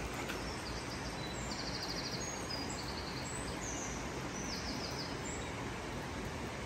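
A small songbird singing a series of short, high, rapid trills over a steady rushing background of the gorge's flowing stream.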